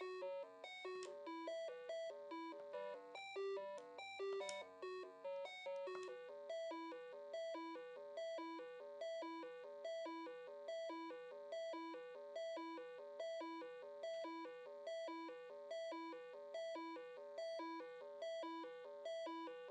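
Background music: a short figure of high, quickly fading notes repeating about once a second.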